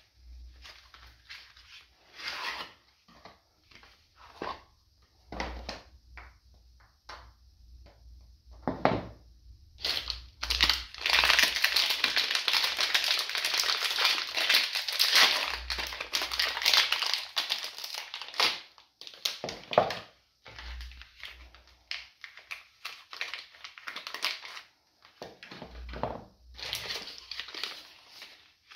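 Hands handling a cardboard box of soap bars, with scattered taps, slides and light scrapes. About ten seconds in comes a long stretch of loud, dense crinkling lasting about eight seconds, as the wrapping is worked off, followed by more scattered handling.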